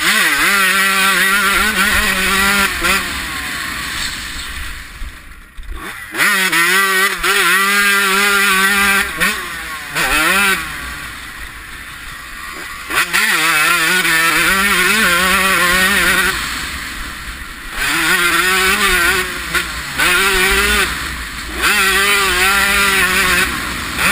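1993 Honda CR125's two-stroke single-cylinder engine under race load, revving hard in repeated bursts and backing off between them, its pitch climbing through each gear. There is one long lull about five seconds in. Wind noise sits over it all.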